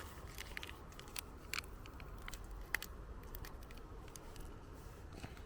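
Faint scattered clicks and crackles, a few sharper ticks, over a low steady rumble.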